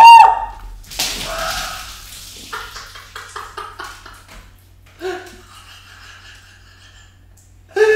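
A woman whoops and then laughs as sparkling rosé foams over out of a freshly uncorked bottle, with a fizzing hiss about a second in.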